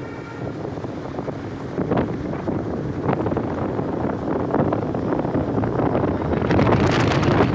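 Wind rushing and buffeting against the microphone from a moving car, over a steady rumble of road noise, swelling louder near the end.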